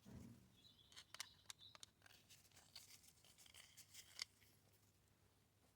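Near silence broken by scattered faint clicks and light scraping from small-tool work on a chainsaw carburetor as its fuel passages are cleaned out, with one sharper click near the end.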